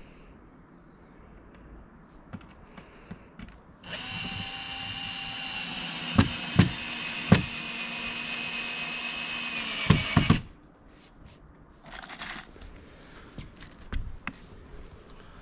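Cordless drill-driver running into a wooden roof board for about six seconds, fixing down the decking, with a few sharp clicks as it bites; it stops abruptly, and a short second burst follows a little later.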